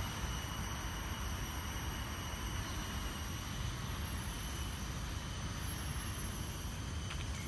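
Steady ambient background noise: a low rumble with a faint, constant high-pitched whine above it, and no distinct events.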